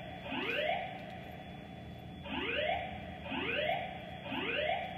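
Fire-alarm voice-evacuation system sounding its rising whoop tone between spoken messages, signalling everyone to evacuate the building. Four rising whoops about a second apart, with a pause of a second or so after the first.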